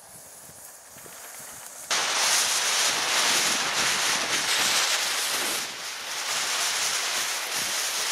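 A smoke grenade hissing loudly. The hiss starts suddenly about two seconds in as the grenade goes off, then holds steady.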